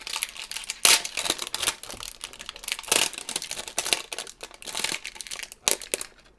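Clear plastic wrapping crinkling in irregular bursts as it is handled and peeled off a cardboard popcorn-bucket blind box.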